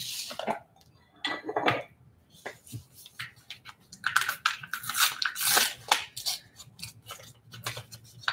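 Packaging crinkling and rustling as it is handled, in short irregular bursts that are densest about four to six seconds in.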